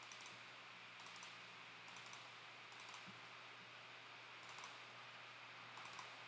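Faint computer mouse double-clicks, about six of them, roughly a second apart with a longer gap in the middle, over a low steady hum.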